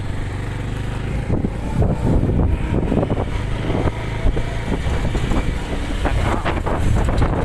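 Motorcycle engine running while the bike rides along a dirt track, with wind buffeting the microphone.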